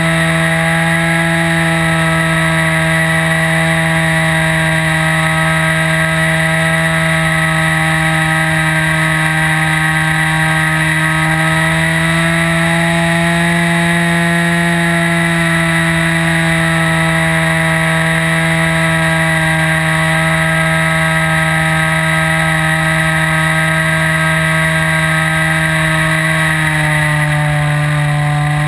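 O.S. 55 AX two-stroke glow engine of a World Models Ultimate 40S model plane running steadily in flight, heard close up from the airframe, with its pitch wavering gently and dipping briefly near the end.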